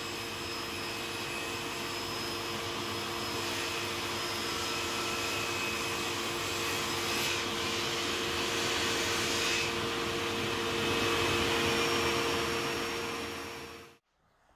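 Steady motor whir with a rushing-air noise and a constant hum, growing a little brighter in the second half, then cutting off abruptly near the end.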